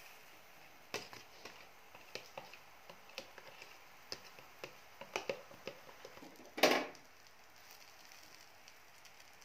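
A metal spoon clicking and scraping against a bowl and a flat griddle in irregular light taps while egg batter is poured out and spread over a paratha, with one louder short clatter about two-thirds of the way in.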